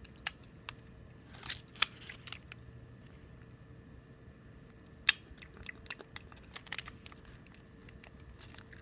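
Chewing a small Teddy Pop candy close to the microphone, with scattered small clicks and crinkles from handling its plastic wrapper and one sharper click about five seconds in.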